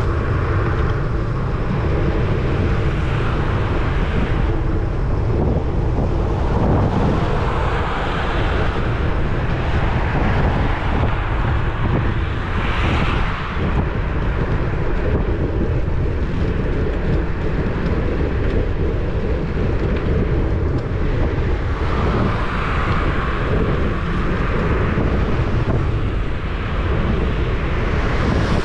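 Wind rushing over a bicycle-mounted GoPro Hero 10's microphone while riding, a steady low rumble with tyre and road noise underneath, swelling louder a few times.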